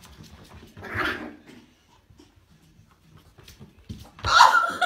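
Small fluffy puppy making short playful sounds while it plays with a ball, once about a second in and again, louder, near the end.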